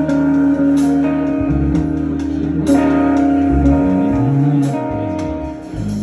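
Live soul/R&B band playing: electric guitar over bass guitar, with held notes and a sharp crash about every two seconds.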